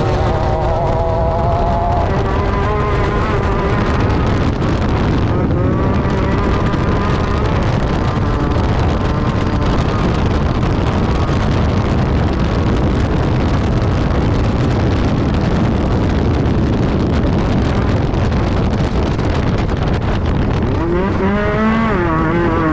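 Class 10 off-road race buggy's engine running hard, its revs rising and falling, over a constant loud rush of noise; the revs climb near the end.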